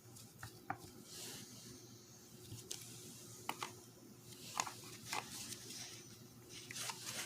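Faint, irregular light clicks and small rubbing sounds from hands working small plastic and rubber parts off a car's manual shifter assembly.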